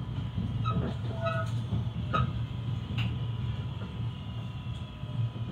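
Class 323 electric multiple unit heard from inside the carriage as it slows on arrival: a steady low running rumble with a few sharp clicks, and a high whine that falls steadily in pitch over the second half, as the train brakes.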